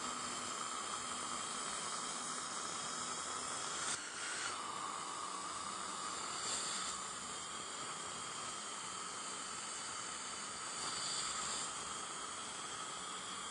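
A steady hiss, with a short click about four seconds in.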